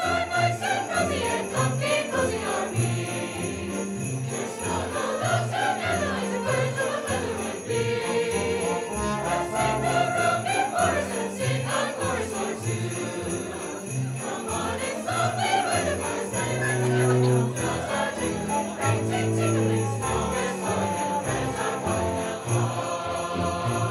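Live holiday concert music with sleigh bells jingling steadily over an ensemble playing a melody.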